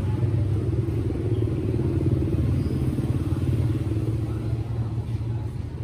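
A small engine running steadily, a low rumble that eases slightly near the end.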